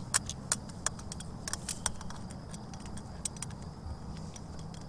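SB7 spirit box sweeping through radio stations: scattered short clicks and crackles, about three or four a second, over a low steady hum.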